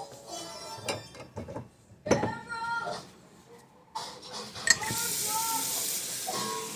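A drinking glass clinking and knocking against hard surfaces, then a kitchen tap turned on about five seconds in, with water hissing steadily as it runs.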